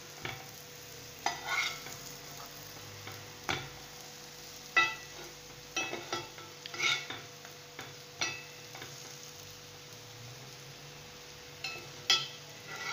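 Metal spatula scraping and tapping on a hot metal griddle pan, about a dozen irregular strokes, as it slides under and turns squares of semolina flatbread frying in olive oil, over a faint steady sizzle. The sharpest clack comes about five seconds in.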